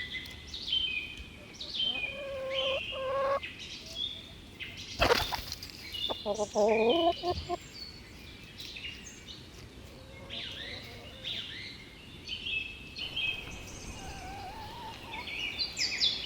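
Small birds chirping and trilling continuously. About five seconds in there is a sharp knock, followed at once by a lower, wavering animal call lasting about a second.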